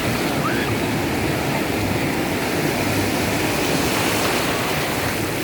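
Steady rushing wash of ocean surf breaking on a beach.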